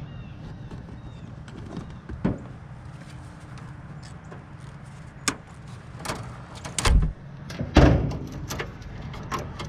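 Scattered clicks and two heavier knocks, the loudest about seven and eight seconds in, from hands pulling wire connectors and handling parts of a Lennox packaged gas unit while its inducer motor is being removed.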